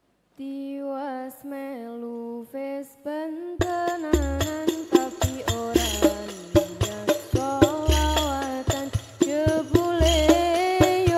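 Banjari (hadrah) ensemble: a solo voice sings an unaccompanied opening phrase. About three and a half seconds in, the rebana frame drums come in with sharp slaps, deep bass-drum booms fall roughly every two seconds, and the singing carries on over the drumming.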